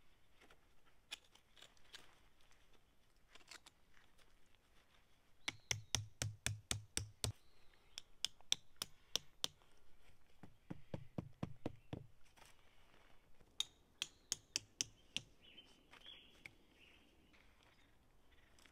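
Three quick runs of sharp knocks, about five a second, each knock with a dull thud under it, the first run the loudest.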